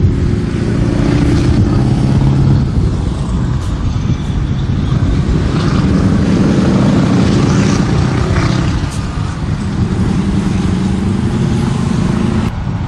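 Diesel engines of American heavy trucks running as the trucks drive past, the engine note shifting up and down.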